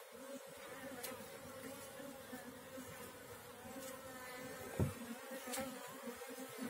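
A wild honeybee colony buzzing in a steady hum as its comb is handled; the bees are agitated, having been given little smoke. A brief low knock sounds a little before the end.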